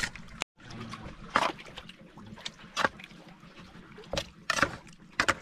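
Plastic knife clicking and scraping against a ceramic plate while diced raw fish is stirred, about seven sharp clicks at uneven intervals, over faint lapping water.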